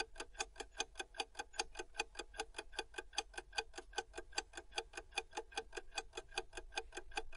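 Clock-ticking sound effect counting down a quiz timer: a fast, even ticking, several ticks a second.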